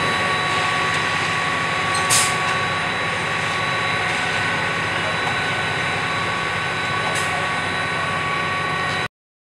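Ready-mix concrete mixer truck running steadily with a held whine during a pour, with two brief sharp sounds about two and seven seconds in. The sound cuts off abruptly near the end.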